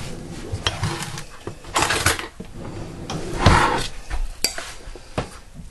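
Kitchen dishes and utensils clattering as a bowl and ladle are handled, a run of separate knocks and short scrapes, the loudest about three and a half seconds in.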